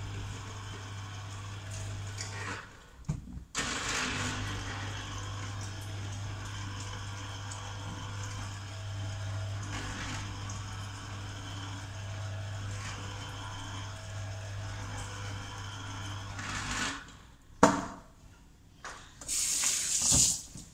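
Electric juicer motor running with a steady hum while fruit is pushed through it. It stops briefly about three seconds in, then shuts off about 17 seconds in. A sharp knock follows, then a short rush of tap water near the end.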